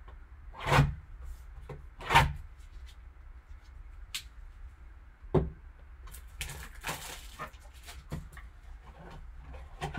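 A cardboard trading card box handled and unwrapped by gloved hands: three knocks of the box against the table in the first half, then plastic shrink wrap crinkling for about a second, with light handling clicks throughout.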